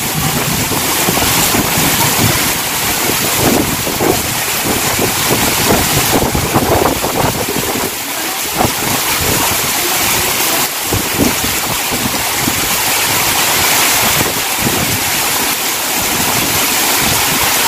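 Heavy rain pouring down in a steady hiss, with strong wind gusting over the microphone in uneven rumbles.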